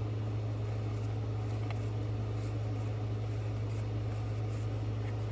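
Steady low hum with a faint even hiss: room tone. One faint click about a third of the way in.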